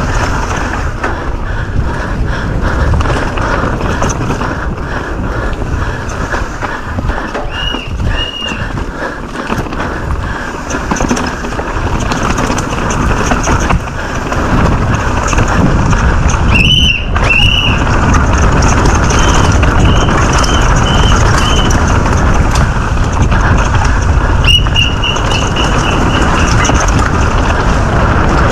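Wind buffeting the microphone over the rattle of a mountain bike descending a rough downhill trail at speed, getting louder about halfway through. A few short high squeaks come and go in small runs.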